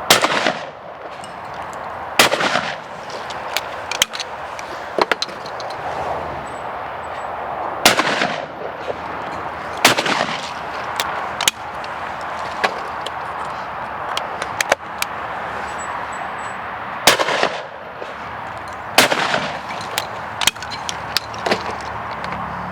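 Purdey Sporter over-and-under shotgun fired six times, in three pairs with about two seconds between the shots of each pair, each shot ringing out briefly. Fainter cracks are heard between the pairs.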